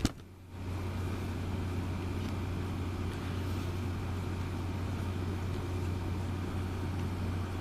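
A steady low hum under an even background hiss, with no distinct events.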